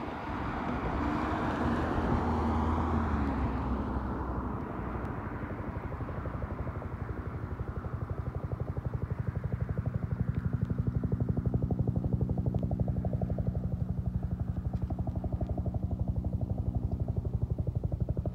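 Bell 212 helicopter with its two-bladed main rotor beating in a fast, even rhythm, along with twin-turbine engine noise, as it comes in to land. For the first few seconds the sound is loudest and falls in pitch, then it settles into the steady rotor beat, which grows louder from about ten seconds in.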